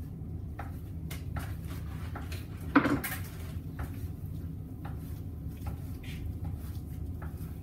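Knife cutting the skin off a bone-in ham on a cutting board: scattered light taps and scrapes, with one louder clatter a little under three seconds in, over a steady low hum.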